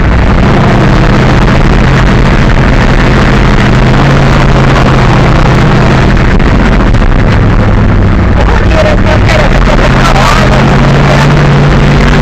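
Monster truck engine running loud inside the cab as the truck drives over a dirt track, its note dropping and rising a few times.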